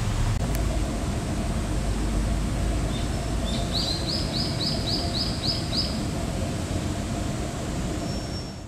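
Steady outdoor background rumble of distant traffic. A bird gives a quick run of about eight high, upward-sliding chirps, about four a second, starting a few seconds in.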